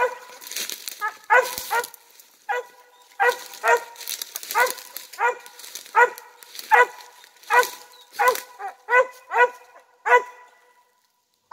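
Treeing hound barking steadily at the tree, about two barks a second, each short and slightly falling in pitch: the dog has its quarry treed. The barking stops about a second before the end.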